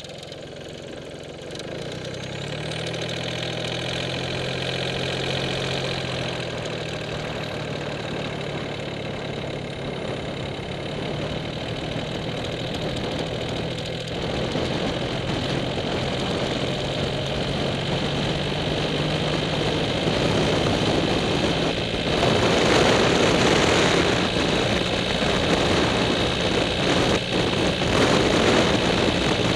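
Track T-800CDi diesel motorcycle's three-cylinder turbodiesel engine pulling away from standstill and accelerating gently, its note slowly rising in pitch and loudness. Wind noise grows over the engine near the end as speed builds.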